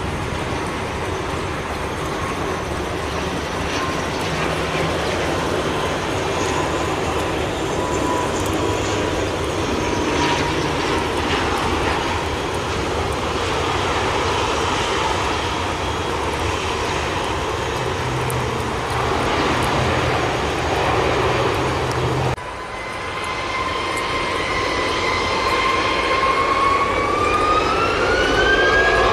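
Twin turboprop engines of an ATR 72-500 airliner on landing: a steady whine over propeller drone and rushing noise. About three quarters of the way through it cuts abruptly to an Airbus A320's jet engines spooling up for take-off, a whine that climbs steadily in pitch.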